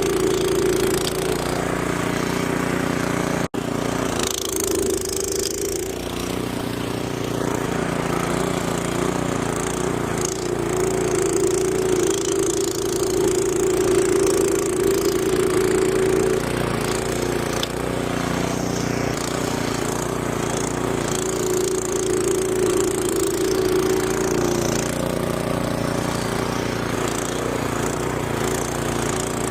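Gas snowblower engine running steadily under load while clearing snow, with a momentary cut-out about three and a half seconds in.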